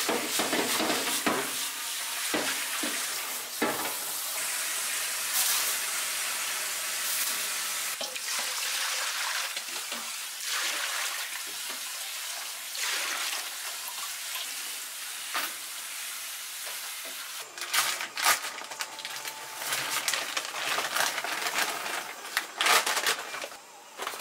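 Kitchen sink faucet spraying water into a metal bowl, a steady hissing splash. After about 17 seconds it turns choppy, with irregular splashes and knocks.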